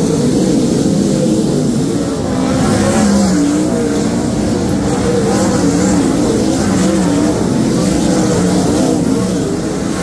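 A pack of sprint cars racing on a dirt oval: several engines run at once, their pitch rising and falling as the cars go round.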